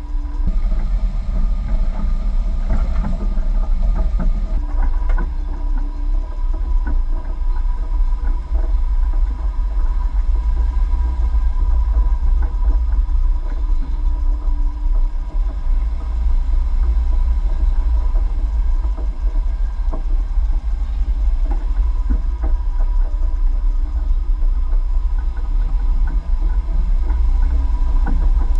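A Jeep running steadily at low speed over a dirt off-road course, its engine under a heavy, constant deep rumble.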